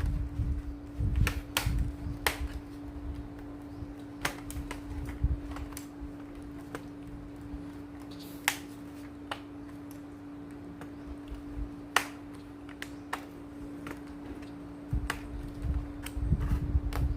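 Scattered sharp clicks and light knocks of an Acer Aspire E5-571 laptop's plastic case parts being handled and fitted back together during reassembly, with heavier knocks at the start and near the end over a steady low hum.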